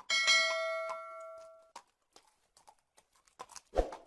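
A single bell-like ding that rings out and fades over about a second and a half, followed by sparse light clip-clop taps and a heavier thump near the end.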